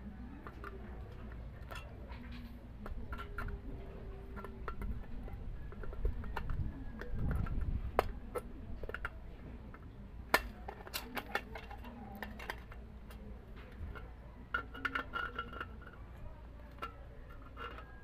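Light metallic clicks and clinks of a tin can, steel wire and pliers being handled as the wire is bent over to lock it, with a few sharper clicks about eight and ten seconds in.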